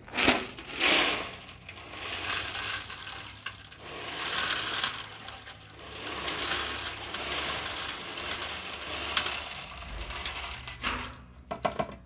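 Coarse dishwasher salt being poured from a container through a plastic funnel into a dishwasher's salt reservoir, a grainy rattling rush of granules that comes in uneven surges.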